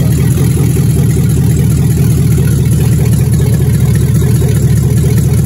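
Engine of a Chevrolet Caprice rolling chassis running steadily at idle, loud and low.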